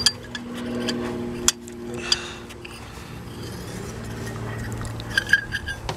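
Metal clicks and clinks of a socket wrench and extension working a stuck spark plug loose in an engine's plug well, with a quick run of clicks near the end. A steady hum runs underneath.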